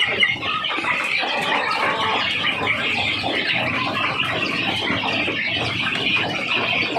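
A flock of young chickens peeping, many short high calls overlapping without a break.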